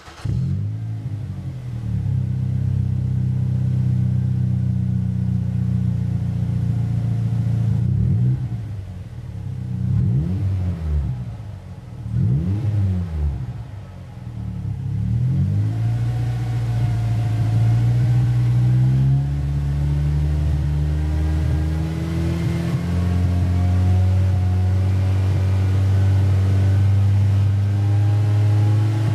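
Exhaust of a Mazda Atenza's turbocharged 2.3-litre four-cylinder, running through a one-off rear muffler with four bullet-shaped silencers and four 90 mm tips, giving a deep low note. It idles steadily, then is revved in a few short blips about eight seconds in, each rising and falling in pitch. For the last ten seconds it is held at a steady, higher engine speed.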